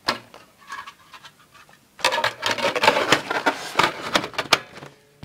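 Plastic parts of a toy airsoft BB gun clicking and scraping as the front barrel is fitted onto the body. There is a single click at the start, then a dense run of rattling clicks and rubbing from about two seconds in until shortly before the end.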